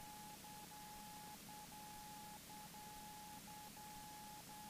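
Near silence in the headset audio feed, with a faint, steady electronic tone broken by short, irregular gaps over a low hiss.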